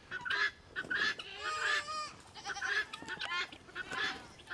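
A flock of helmeted guineafowl calls harshly over and over, a chunk of call about every half second, with one longer wavering call about a second and a half in. The flock is agitated as it turns on a newly introduced guinea.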